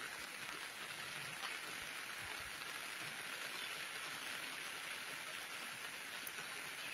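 Steady rain falling on a wet road and muddy ground, an even hiss with no breaks.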